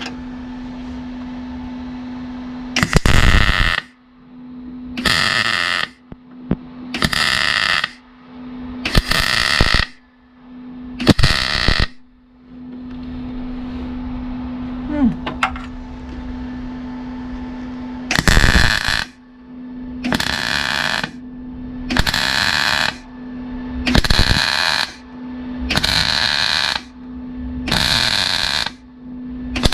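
MIG welder arc crackling in about a dozen short bursts, roughly a second each and about two seconds apart, as tack or stitch welds are laid on thin car body steel, with a pause of several seconds in the middle. A steady low hum continues between the bursts.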